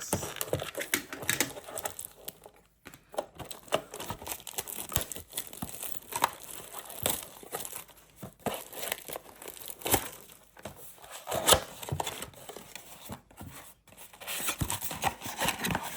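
Plastic wrapping crinkling and tearing as a trading-card blaster box is unwrapped and opened, with irregular crackles throughout and a louder burst of crinkling near the end.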